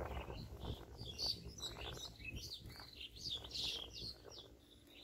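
Small birds chirping: a busy run of short, high chirps over a low steady rumble.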